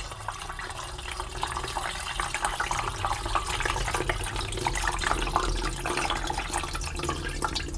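Dirty water being poured by hand from a carpet washer's dirty water tank into its clean water tank, a steady stream of liquid pouring and trickling in.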